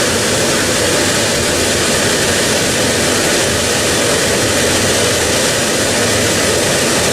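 Gas-fired steam boiler burner firing, a loud, steady, even rush of flame and blower with no change, as the boiler builds its steam pressure back up.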